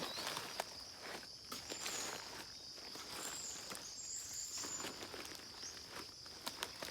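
Footsteps, a soft uneven tread about every half second, over a steady high-pitched insect trill, with a few faint bird chirps in the middle.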